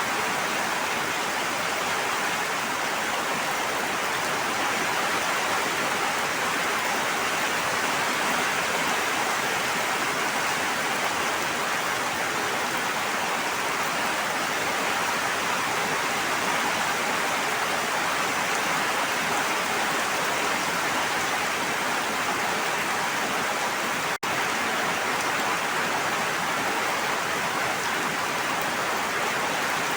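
Steady, even rush of water noise, of the kind made by heavy rain or fast-flowing water, with a momentary dropout about 24 seconds in.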